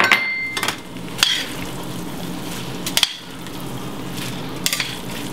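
Metal tongs clinking against a metal skillet as spaghetti in a cream sauce is tossed, over a steady sizzle from the pan. A sharp clink at the start rings briefly, and there are a few more clinks spaced about a second or two apart.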